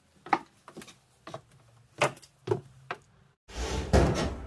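Footsteps on wooden stairs: a series of short, uneven wooden knocks. About three and a half seconds in, a louder rushing noise starts abruptly.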